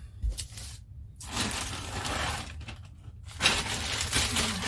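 Crinkling and rustling of plastic wrapping as model kit parts are handled, in two long stretches with a short pause between.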